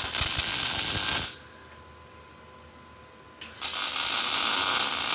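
MIG welding arc of a Lincoln Electric Power MIG 211 crackling on 1/8-inch steel tubing in two tack welds. The first lasts just over a second at the start, and the second lasts about two seconds from about three and a half seconds in.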